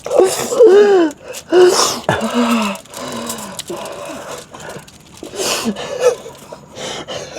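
Wordless vocal sounds from people: short hummed or voiced calls that rise and fall in pitch, mixed with sharp noisy breaths, several times over.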